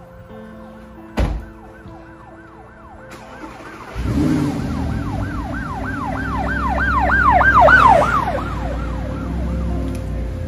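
A car door shuts with a knock about a second in. About four seconds in, the white Audi R8's engine starts and keeps running with a low rumble. Over it a siren whoops quickly, about three rising-and-falling cries a second, growing louder and then fading shortly before the end.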